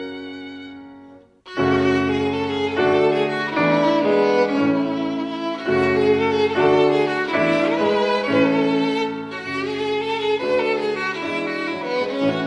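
Classical background music led by violin: one passage fades out, there is a brief silence, and the music starts again about a second and a half in.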